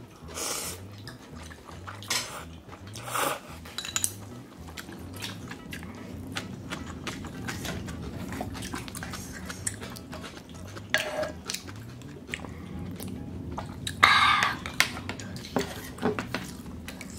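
Tableware clinking and knocking at the table: spoons and chopsticks against bowls and dishes, in scattered clicks, with a louder clatter about fourteen seconds in.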